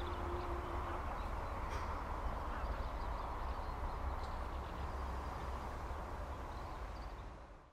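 A held accordion note ends about a second in, leaving a steady background hiss and low rumble with a few faint high chirps, which fades out at the end.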